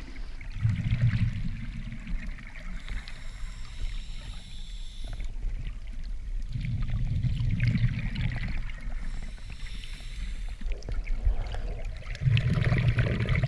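Underwater sound of scuba diving just below the surface: three low bubbling rumbles about every five to six seconds, typical of a diver exhaling through a regulator. Between them is a steady watery hiss and swish.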